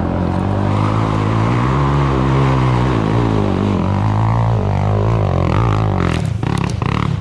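ATV engine running hard under load, its revs rising and then falling back, with a few knocks near the end.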